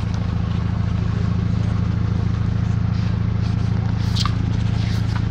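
High-frequency chest wall oscillation vest's air-pulse generator running during a cystic fibrosis airway-clearance treatment: a steady low hum with a rapid, even pulsing.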